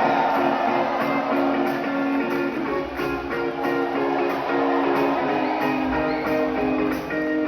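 Live band playing a guitar-led passage of held chords, with little bass weight.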